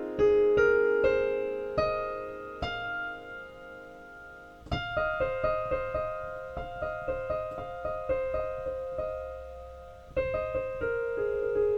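Background piano music: single struck notes ringing out and fading, then a faster run of repeated notes from about five seconds in.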